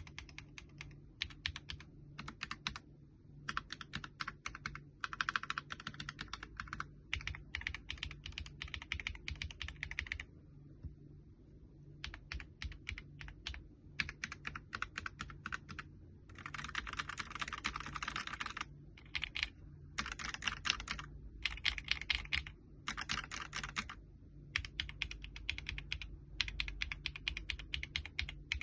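Typing on a mechanical keyboard in bursts of rapid keystrokes with short pauses between them, and a longer pause about ten seconds in.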